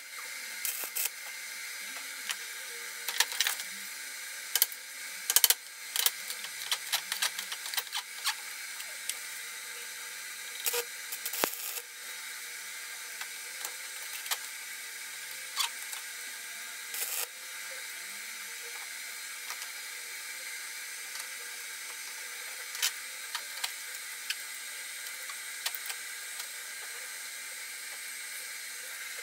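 Electric arc welding on steel: sharp crackling clicks of the arc in short bursts, thick for roughly the first ten seconds and again briefly a little past the middle, over a steady hiss.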